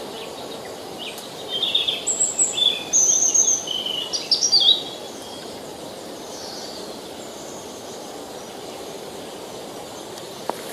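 A songbird singing a quick, varied burst of high chirps and trills for about three seconds, starting a second and a half in, over the steady rush of a river.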